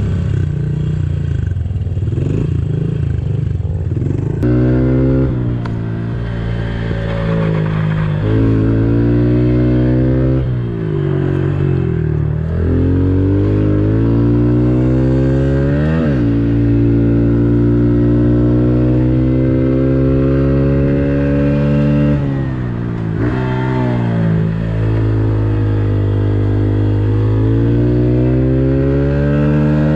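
Honda CRF110F pit bike's small single-cylinder four-stroke engine, on its stock exhaust, being ridden. Its pitch climbs and drops back sharply several times as it is shifted through the gears, with a long steady run at speed in the middle.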